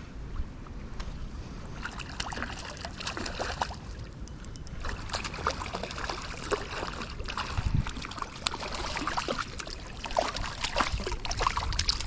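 Shallow river water splashing and sloshing in irregular spurts from about two seconds in, with a hooked trout being fought and brought in through the water. A low wind rumble sits under the first couple of seconds.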